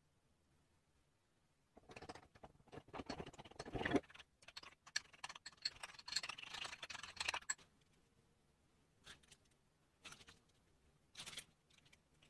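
A metal spoon scraping and clinking against a small ceramic bowl and plates, a busy run of scrapes and taps that is loudest about four seconds in, followed by three short separate clinks near the end.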